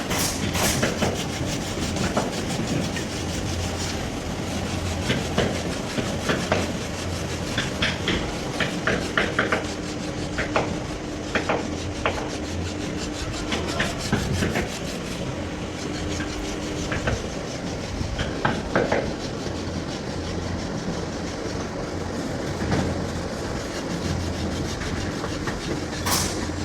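Workshop handwork on wood: steady rubbing and scraping with many irregular clicks and knocks over a low hum, with a faint steady tone about ten to seventeen seconds in.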